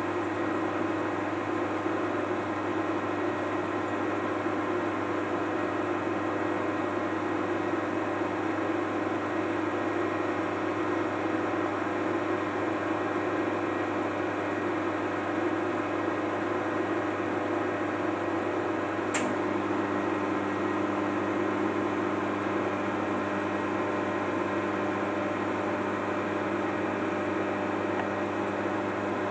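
Steady running hum and whir of a 1958 LGP-30 vacuum-tube computer with drum memory warming up, with several steady tones in it. A single sharp click comes about two-thirds of the way through, after which a low tone joins the hum.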